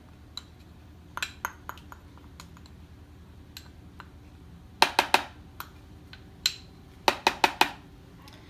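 Kitchen containers and utensils knocking and clinking as ingredients go into a food processor: scattered light clicks, a few sharp knocks around the middle and a quick run of about five knocks near the end.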